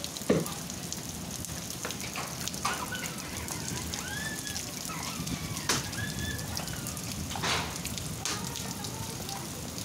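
Heavy rain with hail: a steady hiss of rain, with sharp knocks every second or two as hailstones strike hard surfaces, the loudest just after the start.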